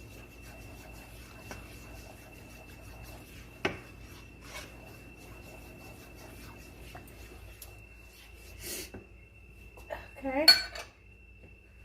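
A spoon stirring and scraping in a pan of thick, gravy-like sauce, with a sharp clink about a third of the way in, over a steady faint high whine and low hum. A short spoken "Okay" near the end.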